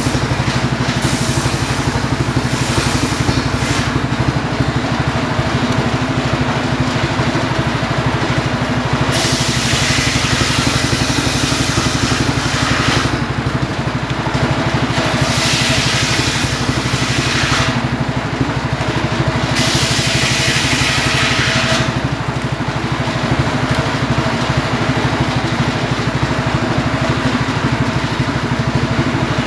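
Engine-driven homemade table circular saw running steadily, its blade ripping firewood logs lengthwise. Each cut adds a high rasping hiss over the engine drone: short bites in the first few seconds, then three longer cuts of two to four seconds each from about nine seconds in.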